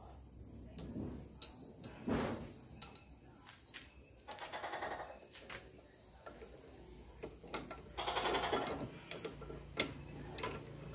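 Scattered clicks, knocks and brief scrapes of a cast-iron cylinder head being shifted by hand on a lathe that is not running.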